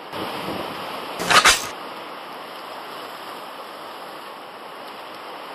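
Steady wash of sea surf and wind along a rocky shoreline, with a brief loud rustling clatter about a second in.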